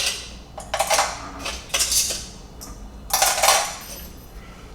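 Hard parts of an espresso grinder being handled and fitted together: the portafilter holder attachment clinks and scrapes against metal and plastic in four short clattering bursts.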